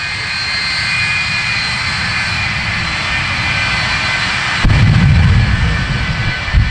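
Shockwave jet truck's jet engines running with a steady high whine that grows slowly louder. About four and a half seconds in, a sudden deep, loud blast comes with a burst of flame and lasts over a second. A short sharp bang follows just before the end.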